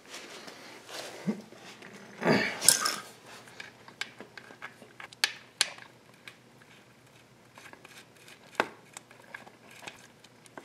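Light handling noises: scattered small clicks and taps of hands and small parts around the engine, with a short rustle about two seconds in.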